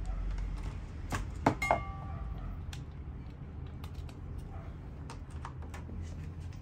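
Scattered small clicks and clatter of hands handling small hard items on a shop counter. About a second and a half in comes a louder metallic clink that rings briefly. A steady low hum runs underneath.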